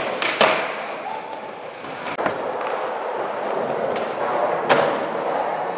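Skateboard wheels rolling steadily, broken by three sharp clacks of the board popping and landing: one just after the start, one about two seconds in, and the loudest near the end.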